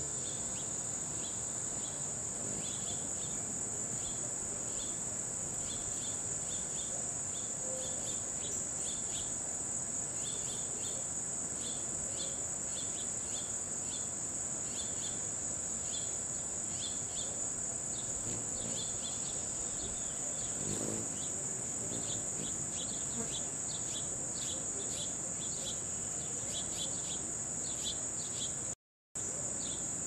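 Crickets' steady high-pitched trill, with many short high chirps scattered through it that come more thickly in the second half. The sound cuts out for a moment shortly before the end.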